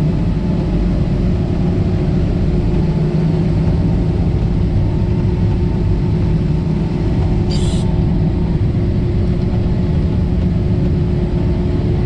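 Harvest machinery running steadily during corn harvest: an even, loud engine drone with a held hum, and a brief hiss about seven and a half seconds in.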